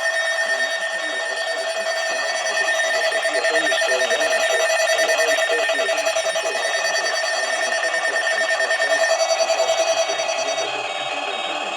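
Several electronic emergency alert tones sounding at once: a dense chord of steady pitches with a fast pulsing beat. One higher tone stops about nine seconds in, and the strongest lower tone drops out about ten and a half seconds in, leaving the rest still sounding.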